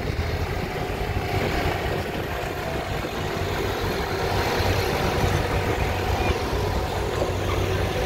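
Fendt farm tractor's diesel engine running steadily under load while it pulls a weight-transfer sled.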